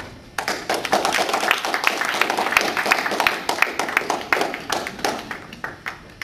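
Audience applauding: a dense run of hand claps that starts about half a second in and thins out near the end.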